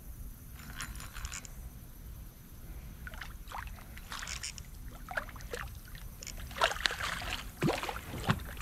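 Hooked channel catfish splashing and thrashing at the water's surface as it is reeled in, in short irregular splashes that come more often and louder over the last two seconds.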